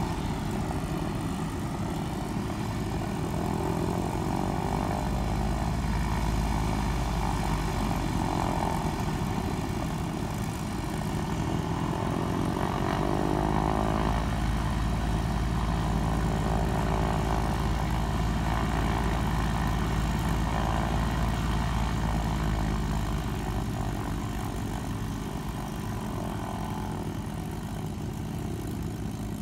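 Vintage WWII fighter piston engines idling steadily on the ground during warm-up, with a propeller turning over. A Spitfire Mk.IX's Rolls-Royce Merlin V-12 is heard first, then, after a change partway through, a Corsair's and a Mustang's engines.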